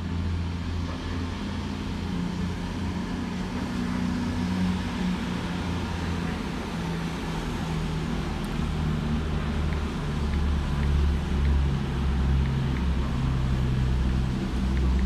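Diesel train engine running at the platform, a steady low drone that grows louder about two-thirds of the way through.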